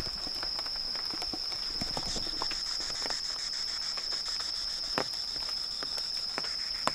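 Insects trilling in one steady, high, unbroken note, with scattered footsteps and light clicks on leaf-littered ground.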